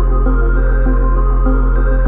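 Background music with long held notes over a steady low bass, no drums.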